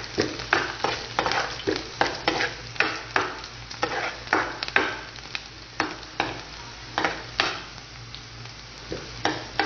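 Sliced onions sizzling in hot oil in a frying pan as they are sautéed, stirred with a spatula that scrapes across the pan about twice a second. The scraping strokes thin out near the end.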